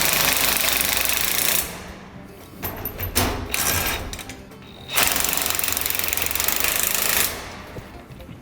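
Impact wrench hammering in two runs of about two seconds each, with a shorter, quieter run between them, snugging 17mm bolts on a steel frame.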